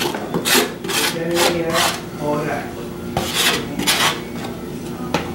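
Kitchen knife scraping chopped meat into a plastic mixing bowl: several short scraping strokes, pausing for about a second midway.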